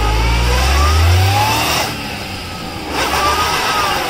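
Maruti Suzuki Alto 800's small three-cylinder petrol engine revving hard while its front wheel spins in deep mud, the car stuck fast. The revs climb, drop off just before two seconds in, then rise again near the end.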